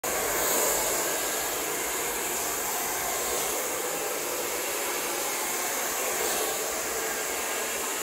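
Nova NHP 8220 hair dryer running steadily on hair: an even rush of blown air with a high hiss.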